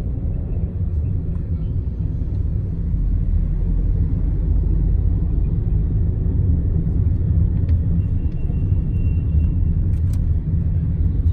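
Steady low road and engine rumble inside a moving car's cabin. A faint high tone is held briefly near the end, followed by a single click.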